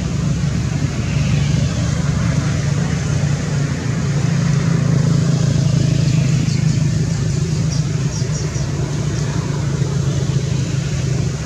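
Steady low rumble of a motor vehicle engine running, with no change in pitch or level.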